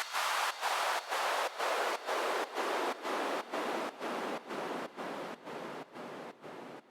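Steady hiss of noise chopped into regular pulses about twice a second, slowly fading away: a gated white-noise effect closing an electronic music track.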